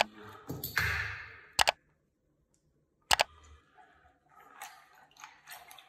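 Three sharp clicks about a second and a half apart, the last one doubled, with soft rustling between them. The sound drops out completely for about a second before the third click.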